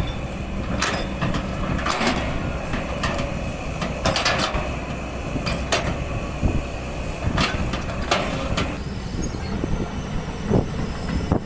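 Kobelco SK200 hydraulic excavator's diesel engine running with a steady low drone, with irregular clanks and scrapes every second or two as it works soil.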